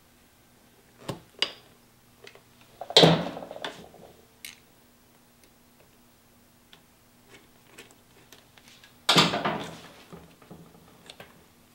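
Hand work with tools and fittings on a motorcycle's fuel system: a few light clicks, and two louder sharp clattering knocks about three and nine seconds in.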